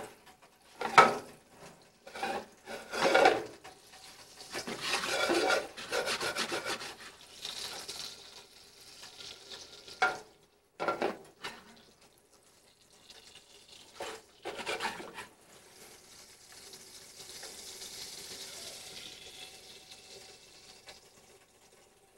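Cooking at a stovetop: metal pots and utensils knock sharply now and then, and a spoon scrapes and stirs in a pan for several seconds. Toward the end a faint sizzle of butter and garlic cooking in a saucepan comes through.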